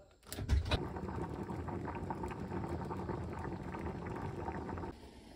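A pot of seafood sujebi soup at a rolling boil, bubbling steadily, with a few knocks as it begins. The bubbling cuts off abruptly near the end.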